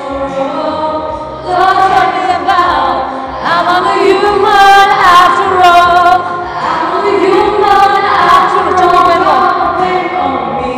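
A young female singer singing an English-language song into a microphone, holding long notes with vibrato.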